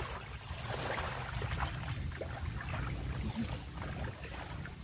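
Wind buffeting the microphone as a steady low rumble, with a faint hiss of open water.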